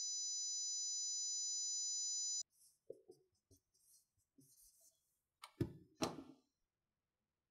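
A steady high-pitched ringing tone, several pure pitches at once, cuts off abruptly about two and a half seconds in. Then comes the faint scratching and squeaking of a dry-erase marker writing on a whiteboard, and two short louder sounds near the end.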